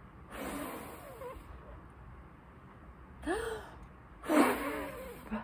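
A woman blowing hard through pursed lips three times, breathy puffs with a little voice in them. The last, about four and a half seconds in, is the loudest.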